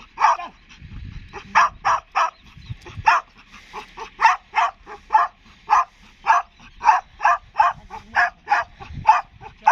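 A muzzled greyhound yelping over and over in short, quick yelps, about three a second, excited while held back on the lead before a trial run.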